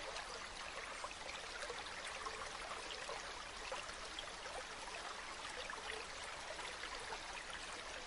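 Mountain waterfall: water falling and splashing in a steady rush, with many small splashes and trickles through it.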